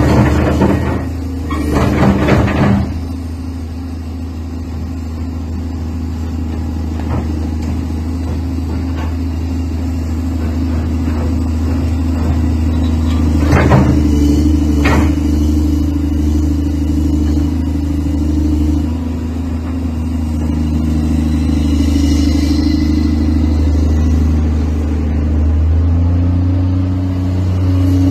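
Komatsu PC200-8 excavator's six-cylinder diesel engine running steadily under hydraulic load, with heavy clanks and knocks from the steel tracks and undercarriage near the start and again about halfway through. The engine speed steps up near the end.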